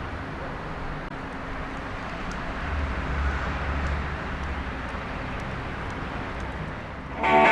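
Outdoor road-traffic noise: a steady low rumble and hiss, one vehicle swelling louder and fading again around the middle. Just before the end, loud rock music with electric guitar cuts in suddenly.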